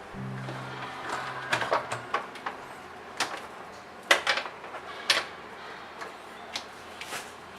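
Irregular clicks and knocks of a hotel door lock's back panel and its parts being handled and fitted against the door, the loudest knock about four seconds in.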